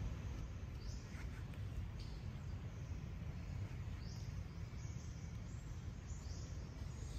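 Steady low rumble with short, high, rising bird chirps scattered through, several of them in the second half.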